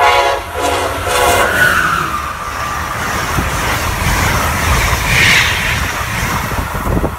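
Amtrak passenger train's horn sounding in two blasts that end about a second and a half in, as the train passes close by at speed. Then comes the loud, steady rush of its coaches and wheels going by.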